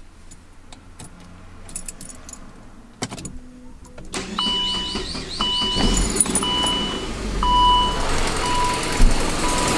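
Keys clicking and jingling in the ignition of a 2006 Saab 9-5, then the engine cranks and starts about four seconds in and keeps running, louder toward the end. A dashboard warning chime beeps about once a second throughout. The car has an exhaust leak from a broken front exhaust manifold stud, the source of its ticking.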